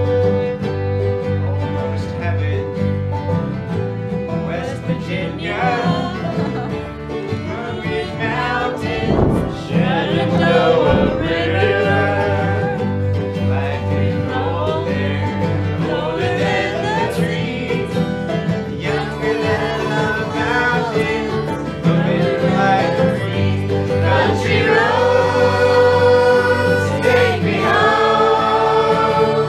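Acoustic string band playing a bluegrass-style tune on banjo and acoustic guitars, with a bending melody line over the steady strumming and picking. The playing grows fuller about ten seconds in and again near the twenty-second mark.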